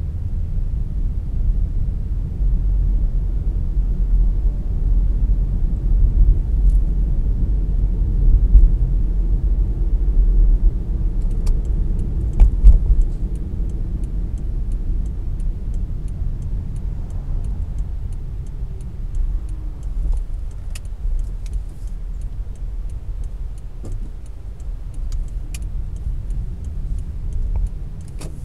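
A car driving through city streets: a steady low rumble of engine and tyres, with a sharp bump about twelve seconds in. From then on a light, even ticking runs at about two a second.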